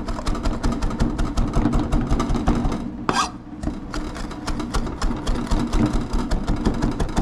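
Chef's knife rapidly chopping fresh cilantro on a plastic cutting board, several blade strikes a second with a brief pause a little after three seconds in. A steady low hum runs underneath.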